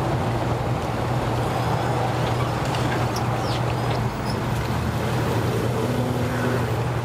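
Bass boat's outboard motor running steadily at low throttle as the boat is powered up onto its trailer, the propeller churning the water.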